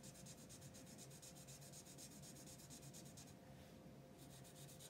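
Faint, quick scratching of a red alcohol marker's tip stroking back and forth over smooth printer paper as an area is filled in, easing off a little after about three seconds.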